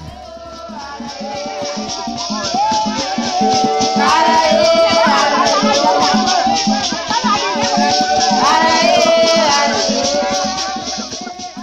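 A group of people singing together, with a shaker rattle keeping the beat and hands clapping. It fades in over the first few seconds and fades out near the end.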